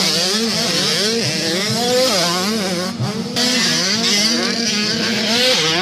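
Several 85cc two-stroke motocross bikes racing on a dirt track, their engines revving hard, the pitch repeatedly climbing and dropping with throttle and gear changes, several engines overlapping.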